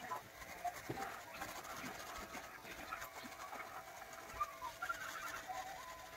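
Corded electric hair clippers running with a faint steady hum as they trim the neckline, with a few light knocks as the clippers are handled. Birds call in the background, chirping briefly for a second or two about two-thirds of the way through.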